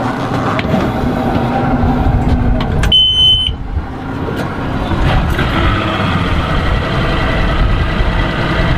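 A single short high beep about three seconds in, then the Mercury 200 HP OptiMax outboard running at a steady idle.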